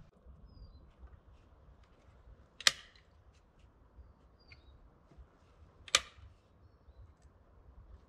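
Two sharp, loud knocks about three seconds apart, from work on a wooden window frame, with faint bird chirps between them.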